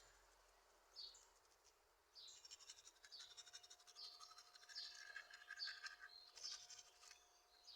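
Faint small birds chirping, short high calls repeating about once a second over a quiet background.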